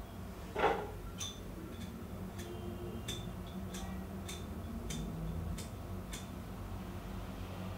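A thump, then a cigarette lighter clicked over and over, about ten sharp metallic clicks at uneven intervals.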